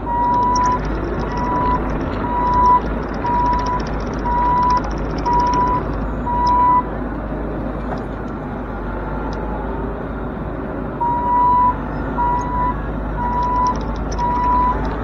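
Bobcat E42 mini excavator's travel alarm beeping at a steady single pitch, about one beep a second, as the machine tracks. It stops for a few seconds midway and then starts again, over the excavator's steady diesel engine.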